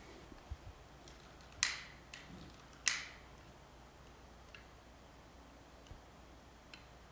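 Two sharp clicks about a second apart over a quiet hum of room tone, followed by a few faint scattered ticks.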